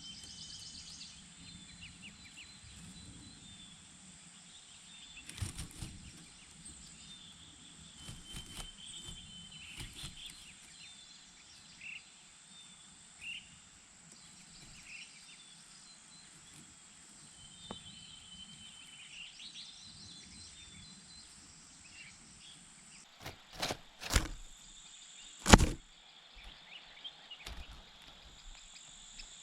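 Faint outdoor ambience: scattered short bird chirps over a steady high hiss. Near the end come a few sharp knocks, the loudest about 25 seconds in.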